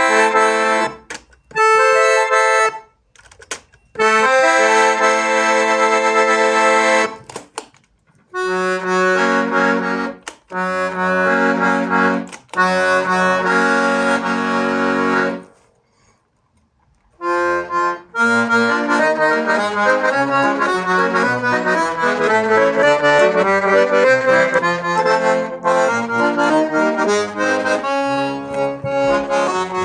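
Hohner Morino 4M accordion being played: held chords broken by short pauses, with bass notes entering about eight seconds in, then after a brief silence a continuous running tune over a rhythmic bass accompaniment.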